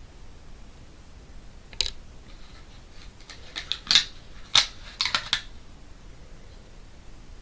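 Sticky adhesive cotton swab rubbing and scratching against the ear close to the microphone. There is one short scratch about two seconds in, then a quick cluster of crackly scrapes in the second half.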